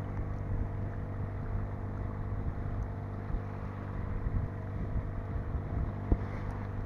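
A boat's engine running steadily at an even speed, with a single sharp knock near the end.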